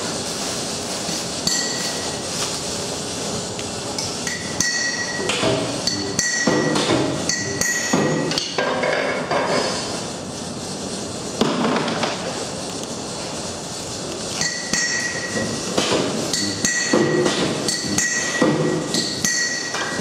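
Metal clanking and strikes, many of them ringing briefly, coming in irregular clusters over a steady workshop background, with a lull about ten seconds in.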